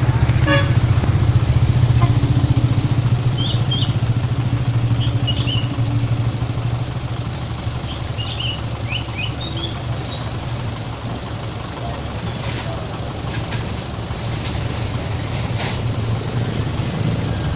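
A vehicle engine running steadily with a low hum, loudest in the first few seconds and a little quieter after about seven seconds.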